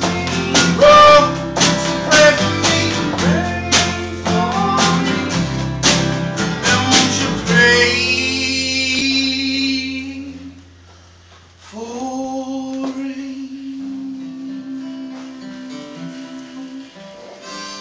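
Live band music: strummed acoustic guitar, snare drum and a singing voice, then a harmonica chord held for about two seconds. The band drops out, and about twelve seconds in a steel guitar slides up into a long sustained note that slowly fades as the song ends.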